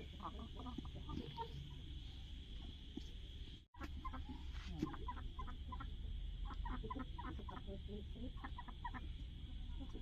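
Aseel chickens clucking softly in short, scattered calls, busier in the second half, over a steady high hum. The sound drops out briefly a little over a third of the way through.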